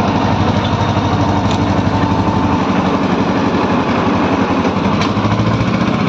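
Engine of a towed concrete mixer with a hoist running steadily, with a fast even chugging and a faint thin whine over it for the first half.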